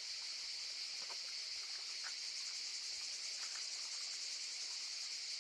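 Steady high-pitched insect chorus, an even, unbroken chirring with a few faint ticks.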